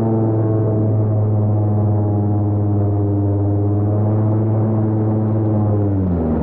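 Airboat engine and propeller running with a loud, steady drone. Near the end the pitch drops.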